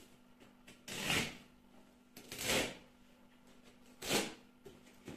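A cardboard parcel being opened by hand: three short scraping, rustling sounds, about a second and a half apart.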